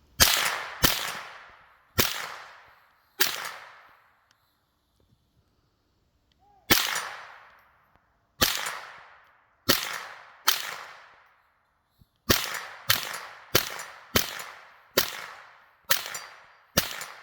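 AR-15 with a CMMG Bravo 22 conversion bolt firing .22 Long Rifle semi-automatically: about fifteen single shots, each a sharp crack with a short fading echo. After the first four there is a pause of about two and a half seconds, then the shots come at a quicker, steadier pace, about one a second, near the end.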